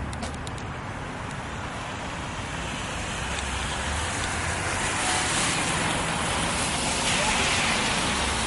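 Outdoor background noise: a steady rushing hiss over a low rumble, growing louder about halfway through.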